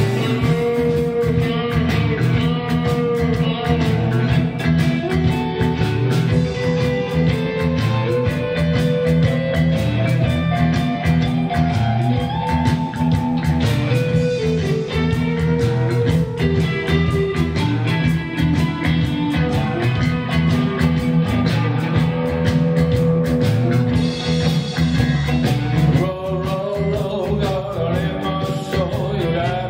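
Live rock band playing: electric guitars over bass and a drum kit with cymbals, keeping a steady beat.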